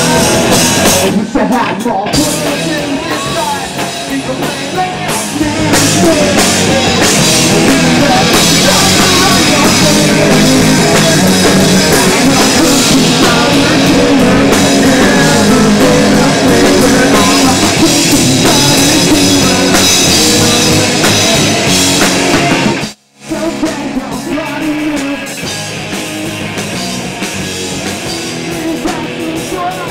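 Live rock band playing loudly, with electric guitars, drum kit and a male lead singer. About 23 seconds in, the sound cuts out completely for about half a second, then comes back a little quieter.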